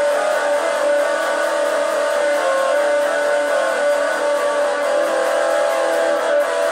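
Electric guitar strummed continuously, a steady run of sustained chords with little bass.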